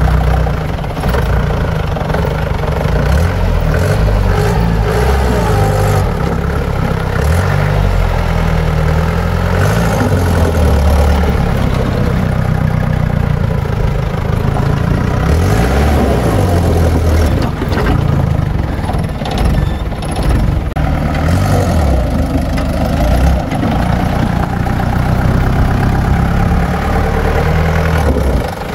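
Old army jeep's engine running and revving repeatedly, its pitch rising and falling, as it is driven on loose dirt with soil weighting its rear; the rear tyres slip on the dirt and the front wheels do not lift.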